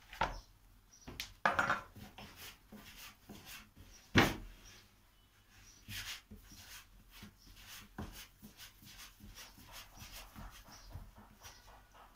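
Soft, sticky dough being torn from a plastic bowl and patted into balls on a floured wooden board: squishing and pats with scattered knocks on the wood, the loudest thud about four seconds in.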